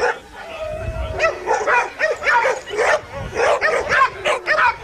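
Dogs barking and yipping, short sharp calls following one another several times a second.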